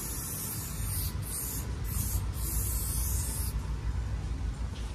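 Aerosol spray-paint can spraying in four bursts separated by brief breaks, the hiss stopping about three and a half seconds in.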